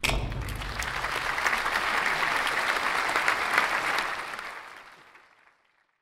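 Audience applauding, starting abruptly and fading out over the last two seconds.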